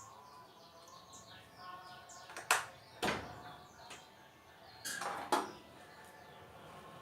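Four sharp knocks or clatters, two about two and a half to three seconds in and two about five seconds in, over birds chirping in the background.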